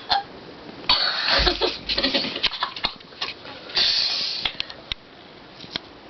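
A person forcing a burp: short, breathy throat noises about a second in and again near the middle, which the other contestant calls fake.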